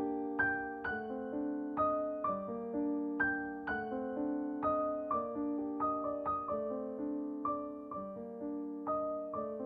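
Background piano music: a gentle melody of single struck notes at an even, unhurried pace.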